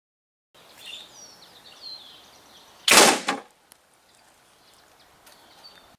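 Homemade PVC piston-valve air cannon fired at 4 bar, its potato slug hitting a sheet-metal target. One sharp bang comes about three seconds in, with a smaller rattle right after it.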